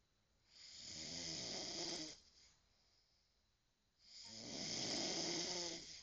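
A man snoring: two long snores, each lasting about one and a half to two seconds, about three and a half seconds apart.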